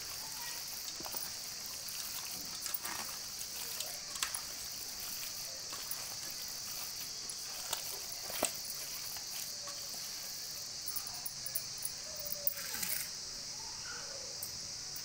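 Hand mixing chicken pieces in a wet spice marinade in a steel bowl: irregular soft squelches and clicks, over a steady high-pitched chirring.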